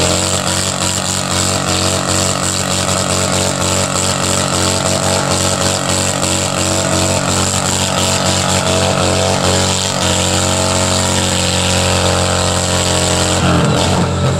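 Motorcycle engine held at high revs during a burnout, the rear tyre spinning on the pad. The pitch stays level, shifts slightly about two-thirds of the way in, then dips briefly and picks up again near the end.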